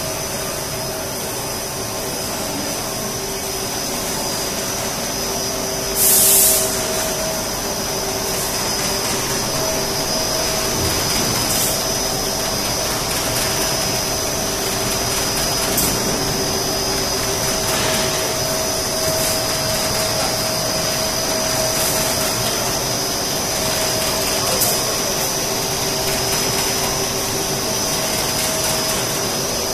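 Rotating inner-cooling film blowing machine running: a steady rush of air from its cooling blowers and ducts mixed with the extruder drive, with a steady hum in it. A brief loud hiss comes about six seconds in, and a few faint clicks sound later on.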